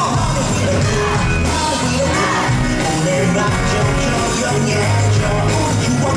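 Live pop-rock band music played loud through a concert sound system, with a voice singing over it.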